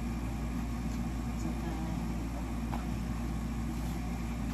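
Steady low mechanical hum of room background noise, even throughout with no distinct handling sounds.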